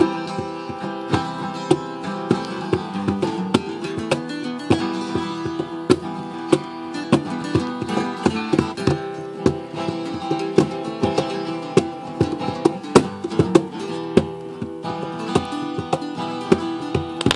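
An acoustic guitar and a second plucked string instrument played together, with many quick picked and strummed notes.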